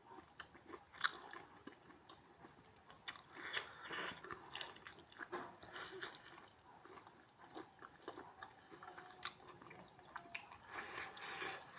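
A person chewing and biting pork close to the microphone, with irregular wet mouth clicks and smacks that come thicker about four seconds in and again near the end.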